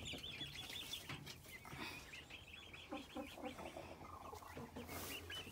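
Chicks peeping in quick runs of short high notes, faint, with quieter clucking from hens in the middle.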